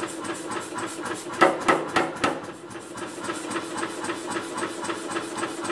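Power hammer running with a steady, fast clatter and hum. About one and a half seconds in come three heavy blows, the hammer striking a top tool down onto a red-hot steel bar in a tong jig to forge tong jaws.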